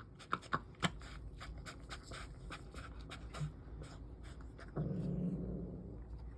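Mother cat eating kitten food: a run of quick wet chewing and smacking clicks, louder in the first second, then about five seconds in a low, rough noise from the cat lasting about a second.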